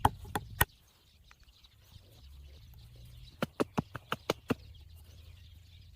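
Sharp wooden taps: two near the start, then a quick run of about seven taps, roughly four a second, a little past the middle, as wooden pegs are tapped into the drilled holes of a hardwood rake head.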